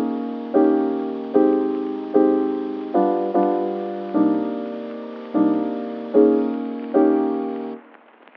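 Soft background piano music: a slow piece of chords, each struck and left to die away. It fades out near the end.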